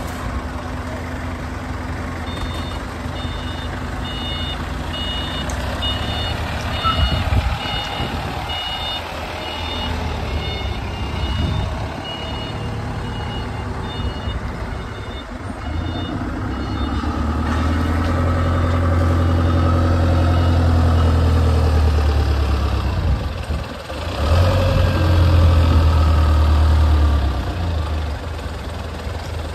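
A vehicle's reversing alarm beeping at an even pace for about fifteen seconds over a running engine. Then the heavy engine revs up and holds for several seconds, drops back briefly, and revs again before settling.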